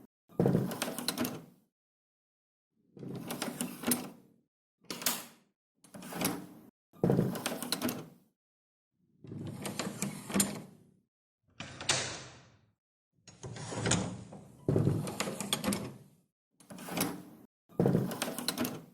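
Door handle being turned over and over to open the latch: about eleven separate takes, each a rattle of lever and latch with sharp clicks lasting half a second to two seconds, with dead silence between them.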